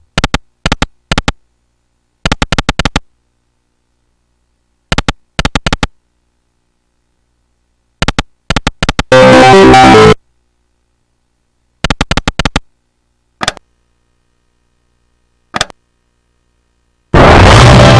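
A video slot game's synthesized sound effects: clusters of quick electronic beeps as the reels run, with complete silence between them. A louder jingle lasting about a second comes about nine seconds in, and another starts near the end.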